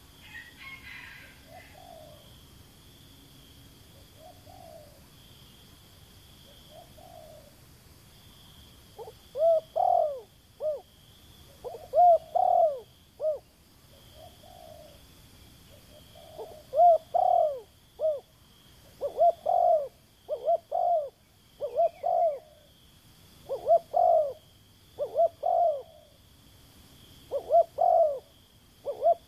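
Dove cooing. Faint single coos come at first, and from about nine seconds in there is loud cooing in short phrases of two or three notes, repeated every second or two.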